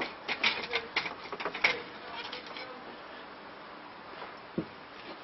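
A quick run of light clicks and knocks from handling in the workshop, then a faint steady hum with one dull thump near the end.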